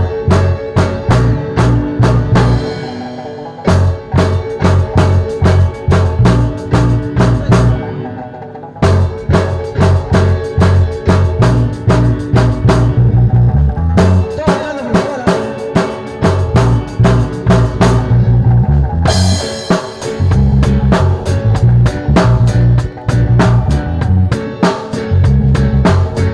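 Music with a drum kit and heavy bass playing a steady, fast beat, which drops out briefly a few times.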